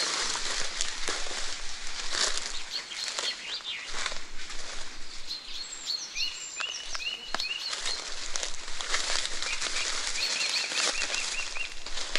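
Dry leaf litter crunching and rustling underfoot as people walk through the forest. Birds call over it: a short series of falling notes about six seconds in, then a quick run of repeated chirps near the end.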